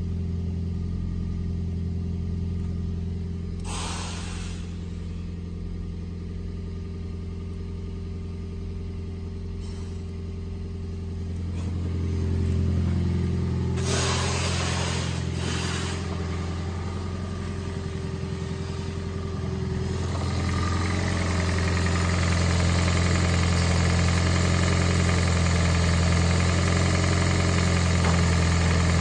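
2008 Toyota Prius's 1.5-litre four-cylinder engine running steadily, a constant hum that grows louder about two-thirds of the way in as it is heard close up under the hood. Two brief noises, about four and fourteen seconds in.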